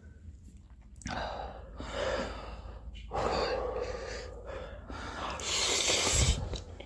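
Heavy, gasping breaths and slurps from men eating very spicy Samyang Buldak fire noodles, breathing hard against the burn of the chili. It comes in bursts with short pauses, the loudest a sharp hiss about six seconds in.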